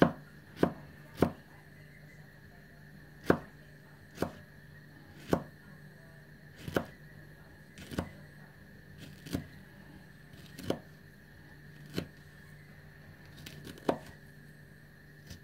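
William Collins NK knife slicing a red chili into rings, the blade knocking onto a plastic cutting board with each cut: three quick knocks at the start, then about one a second.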